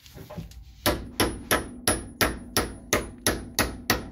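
Hammer beating a pin through a Brembo 17Z brake caliper: a steady run of sharp metal-on-metal strikes, about three a second, starting about a second in.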